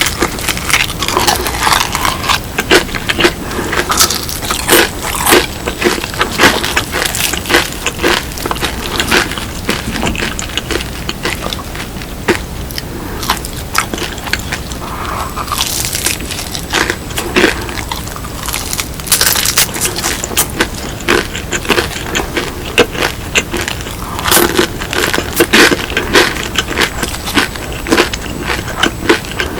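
Close-miked biting and chewing of crispy BHC Bburinkle fried chicken, many irregular crisp crunches of the seasoned crust.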